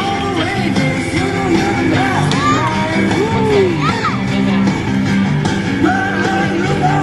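Upbeat Christmas song playing, with singing over the band.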